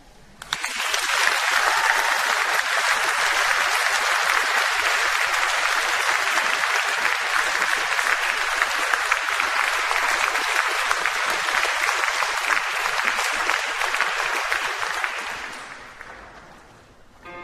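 Audience applauding, starting suddenly about half a second in, holding steady, then dying away over the last two seconds.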